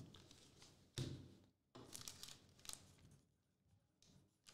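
Faint desk handling: a soft thump about a second in, then light paper rustling and small ticks as an envelope is picked up and written on with a marker.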